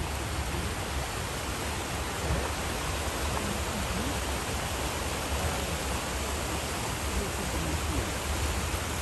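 Steady rushing of fast-flowing water, an even hiss with a low rumble underneath.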